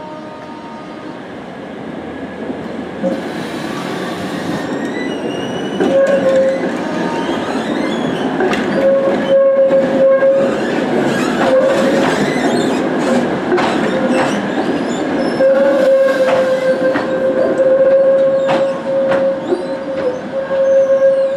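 Tatra T6A5 trams running through tight curves, growing louder as they come close. The steel wheels squeal on the curve: a high wavering screech from about three seconds in, then a steady mid-pitched squeal that comes and goes and holds for several seconds near the end. Sharp clacks from the wheels on the track run through it.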